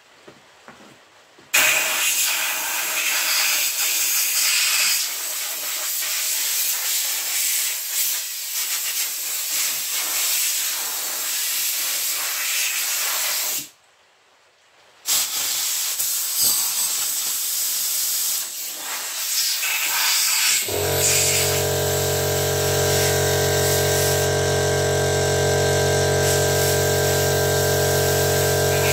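Compressed air hissing from an air blower gun, blowing leftover powder out of a powder coating gun, in two long blasts with a short break between them. About two-thirds of the way in, an air compressor starts and runs with a steady hum under the hiss, topping its tank back up.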